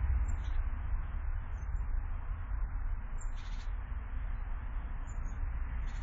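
Outdoor garden ambience: a steady low rumble and hiss, with a few faint, brief high chirps from small birds, the clearest about three and a half seconds in.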